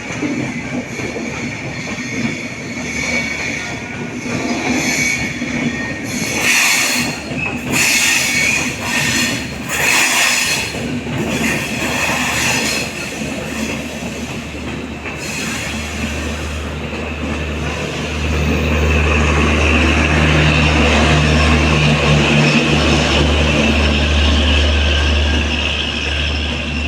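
Express passenger train running on the line, its wheels clattering irregularly over the rails with a steady high metallic squeal. A low steady drone comes in about halfway through and grows louder.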